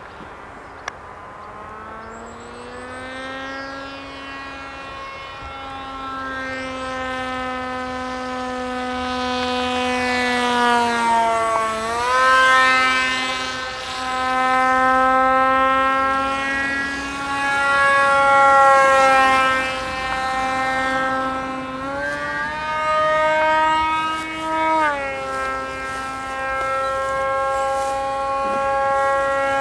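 Motor and propeller of a Depron foam RC F-22 Raptor model whining in flight. The pitch wavers up and down and drops sharply twice, about twelve and twenty-five seconds in. It grows louder over the first ten seconds as the plane comes closer.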